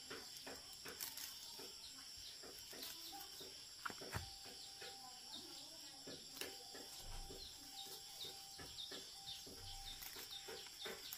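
Leafy greens being picked by hand: a string of small irregular snaps and rustles as stems are broken off. A steady high-pitched hum runs behind it, with faint short chirps through the middle and later part.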